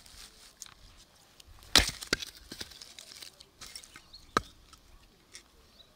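Hatchet splitting a short log of firewood on a wooden chopping block: a sharp woody knock about two seconds in, quickly followed by a second, then another single knock a couple of seconds later.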